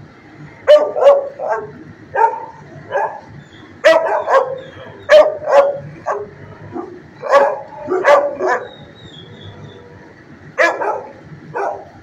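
Dog barking in quick runs of three or four barks, about six runs in all, with a pause of about two seconds before the last run.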